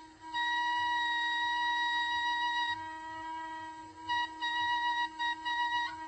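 Instrumental background music with a flute melody: one long held note, then several shorter, softer notes over a steady low drone.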